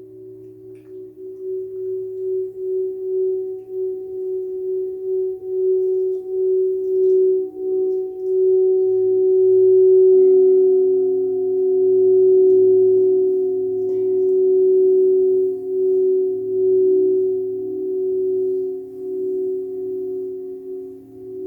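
Crystal singing bowls sounding long, wavering held tones that swell up over the first few seconds; about ten seconds in a second, lower tone joins.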